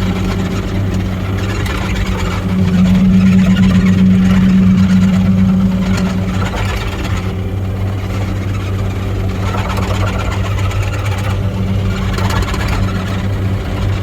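Mini excavator's diesel engine running steadily as the machine tracks slowly along, a deep even hum that grows louder from about two and a half to six seconds in.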